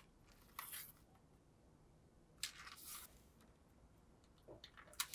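Faint handling sounds of adhesive tape on a cardboard sheet: a few short rasps as tape is drawn off the roll and pressed along the cardboard edge, with a couple of light ticks near the end.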